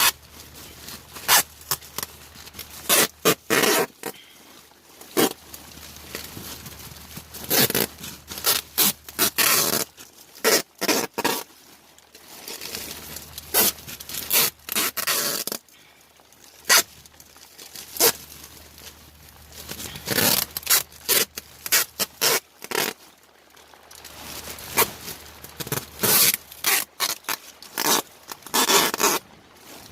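Duct tape being pulled off the roll in repeated short, loud rips and pressed around a flexible air duct joint, with scraping and handling noise between the pulls.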